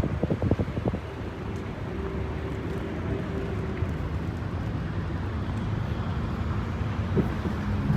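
Steady low rumble of vehicle engines and traffic, with an engine hum that shifts in pitch partway through. A quick run of knocks comes in the first second.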